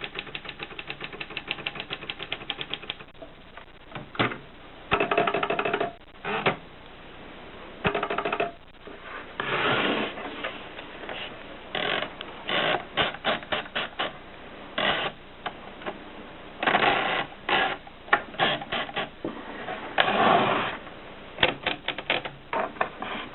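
Olympia Filia portable manual typewriter in use: keys striking in a fast, even run of clicks for the first three seconds, then scattered clusters of clicks. Several denser mechanical runs of about a second each break in along the way.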